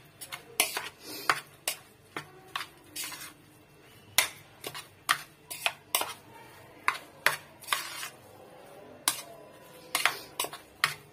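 Metal spoon stirring a dense, wet filling of ground tripe and rice in a bowl, clinking and knocking against the bowl's sides at irregular intervals, roughly one to two strikes a second, with a couple of short lulls.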